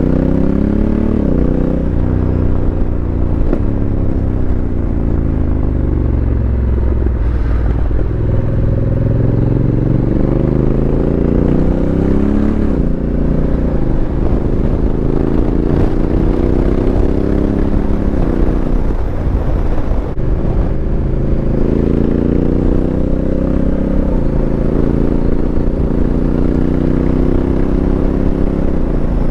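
Honda CRF1100L Africa Twin's parallel-twin engine through a Fuel Exhausts aftermarket exhaust, riding under way: the exhaust note climbs in pitch, drops sharply at each upshift and climbs again, with stretches where it falls off as the bike slows. Wind noise on a helmet-mounted mic runs underneath.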